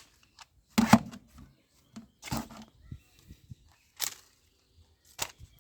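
Handling noise from plastic toy guns being picked up and moved about: about five short clacks and rustles, the loudest about a second in.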